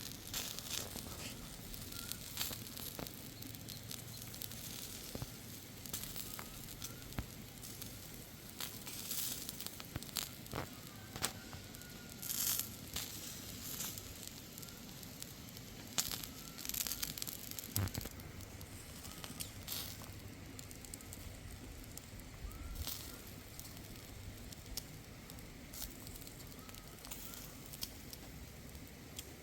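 Open wood fire crackling, with irregular sharp pops that come thicker about a third of the way in and again past the middle.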